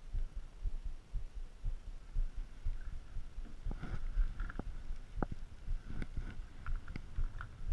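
Muffled low thumping, with a handful of sharp pops in the second half as the paintball game goes on.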